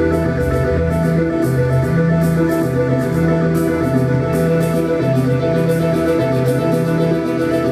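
Live electronic music from a synthesizer duo: held synth tones over a low bass line that steps from note to note, with short hiss pulses in the highs.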